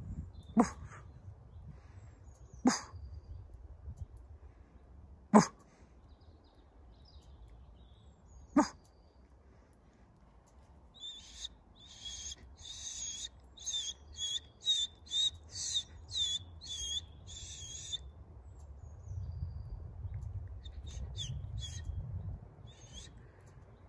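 A small songbird sings a rapid run of high chirps in the middle, with a few more chirps near the end. Earlier, four short, sharp sounds come a few seconds apart and are the loudest things heard, over a low outdoor rumble.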